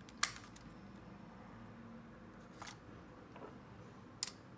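Battery compartment door of an Olympus Superzoom 76s 35mm point-and-shoot camera snapping open with a sharp click, followed by two fainter clicks as the camera and its AA batteries are handled.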